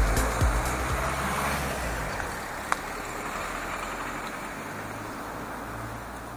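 Electronic dance music fades out over the first two seconds, leaving steady street traffic noise, with one sharp click a little before the middle.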